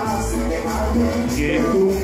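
Latin dance music from a DJ's mix, played loud over the hall's sound system, with a steady bass beat and a regular percussion pattern.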